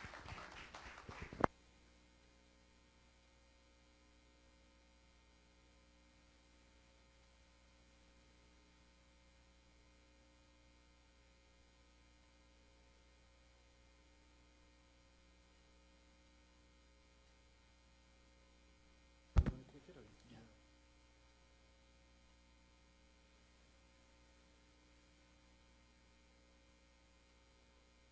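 Steady mains hum from an open microphone and sound system, a low buzz with a few faint steady tones in it. About a second and a half in, a short stretch of rustling ends in a sharp click, and near the nineteen-second mark a single sharp microphone knock is followed by a brief rattle.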